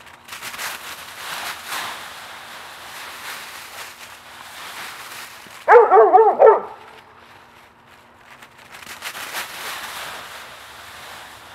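Dogs scrambling through a pile of dry leaves, the leaves crunching and rustling. About six seconds in, a dog lets out a quick string of about five loud barks.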